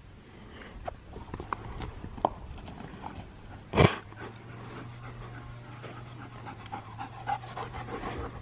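A German Shepherd panting hard after running, with scattered small clicks and one loud thump about four seconds in.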